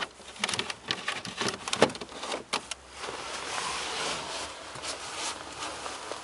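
A series of sharp clicks and knocks from a hand handling the car's interior plastic trim around the glove box and lower dashboard. From about three seconds in, a steady rushing hiss follows.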